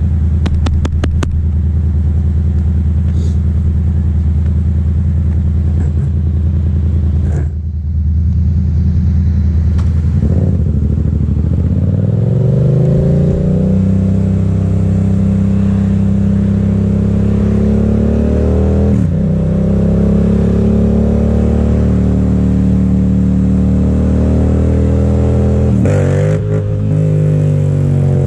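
Motorcycle engine heard from the rider's seat, running steadily at low revs, then rising in pitch as the bike accelerates about ten seconds in and settling into a steady cruise. The engine note dips briefly twice during the cruise.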